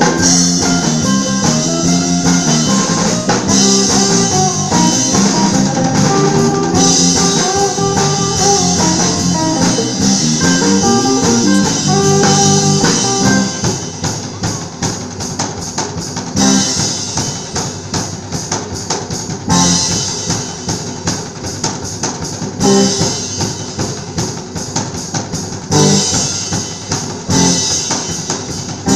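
Live rock band, with drum kit, electric guitars and bass, playing a surf-rock instrumental. A picked electric guitar melody runs over a fast drum beat; about 13 seconds in the melody stops and the drum kit carries on at the front with busy strokes and a cymbal crash every few seconds.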